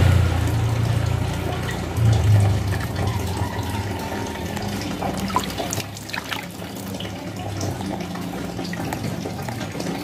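Tap water running and splashing, over a steady low hum that weakens about six seconds in.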